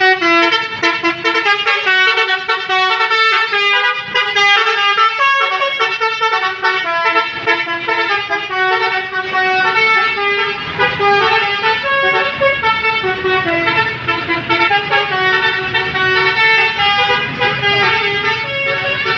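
Indonesian 'telolet' multi-tone bus horn (Basuri type) on the Bulan Jaya bus, playing a long, unbroken tune. Several horn tones sound together and step quickly from note to note, stopping near the end.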